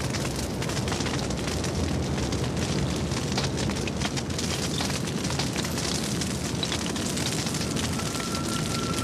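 Bush fire burning through dry scrub and grass: many sharp crackles over a steady rushing noise of the flames. A thin steady high tone comes in near the end.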